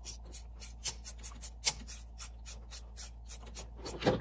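Ratchet turning a 13 mm socket on a long extension to back out an intake horn bolt, its pawl clicking in a quick, even run of about six clicks a second.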